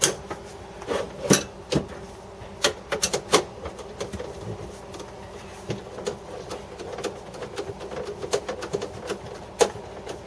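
Scattered sharp clicks and knocks of plastic refrigerator drawer parts and a nut driver being handled during reassembly. There are several in the first three and a half seconds and one more near the end, over a steady low hum.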